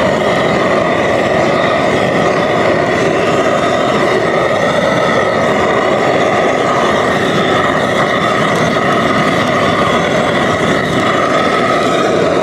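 An engine running steadily and loudly at an even pitch, with no change in speed.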